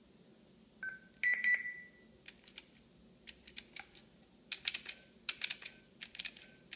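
Electronic toy prop beeping, then clicking as its buttons are pressed while its recorded message is erased. A short beep comes just under a second in and a louder beep that fades follows; then a run of small plastic clicks with faint short beeps among them.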